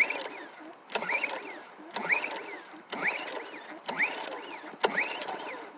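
Recoil starter of a brand-new Predator 2500-watt inverter generator being pulled on its first start, about once a second, five pulls in all. Each pull is a short rising whir as the engine turns over without catching.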